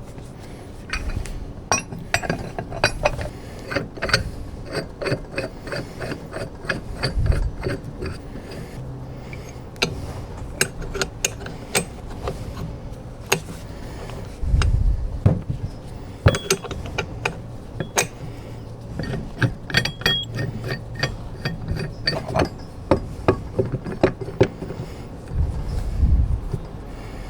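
Hand ratchet clicking in quick runs, with metal clinks and a few dull knocks.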